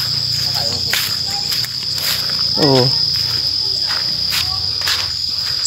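Insects keeping up a steady high-pitched drone, with a few scattered rustling steps through grass and a short vocal sound falling in pitch about two and a half seconds in.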